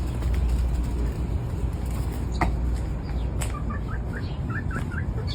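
A steady low rumble, with a quick run of about eight short, high, rising chirps near the end: chickens' soft calls.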